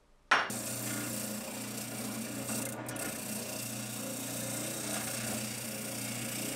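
Benchtop spindle sander switched on about a third of a second in with a sharp start, then running steadily with a low motor hum, its drum sanding the curved edge of a wooden chopping board.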